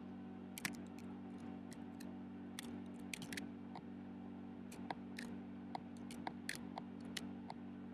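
Scattered light clicks and taps of a laptop's keys and trackpad, irregular and in small clusters, over a steady low hum.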